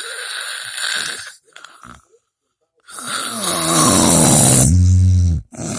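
Loud snoring: a breathy breath, a pause, then a long snore whose pitch bends and settles into a strong low drone before cutting off, with the next breath starting near the end.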